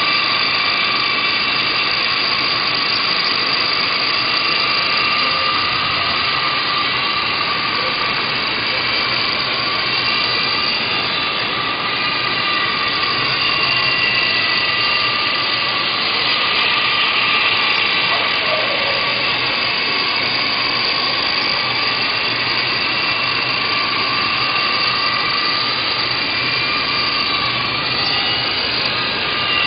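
Walkera LAMA 400 electric radio-controlled helicopter in flight: a steady, high motor and gear whine over rotor noise, its pitch wavering slightly as the throttle changes.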